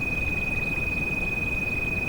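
A steady, high-pitched pure tone of the kind used for tinnitus sound therapy, held without change over continuous rain noise that is heaviest in the low end.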